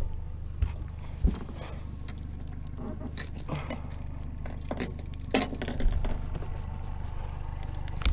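Handling noise on a boat: short metallic clinks and rattles of gear being moved about, bunched between about three and six seconds in, over a steady low hum.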